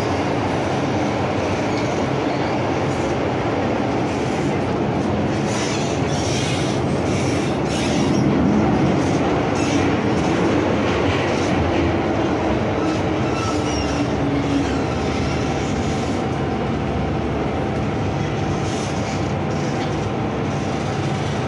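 Inside a moving MTR Island Line M-Train car running in tunnel: a steady rumble and hiss of wheels on rail and running gear, with faint motor tones and scattered clicks. It swells a little about eight seconds in.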